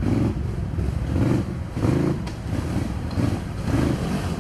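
Quad bike (ATV) engines revving in short, repeated bursts under load while climbing a steep, muddy slope.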